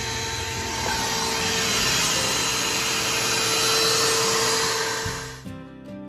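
Shop-Vac ash vacuum running steadily with a constant whine, sucking the last fine ash out of a wood stove's firebox. It cuts off suddenly near the end, where guitar music begins.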